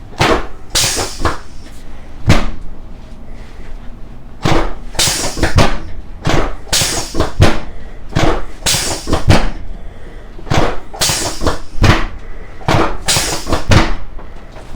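Chiropractic adjustment of a patient lying face down: groups of sharp knocks and pops from the spine and table arrive roughly every two seconds, some followed by a short hiss. The spine is popping and clicking under the pressure.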